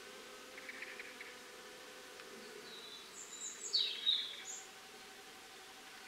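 A honeybee buzzing steadily in flight around dandelion flowers, the hum fading about halfway through. Birds sing, with a short trill about a second in and a brief burst of high chirps and a falling whistle about three and a half to four and a half seconds in, the loudest sound heard.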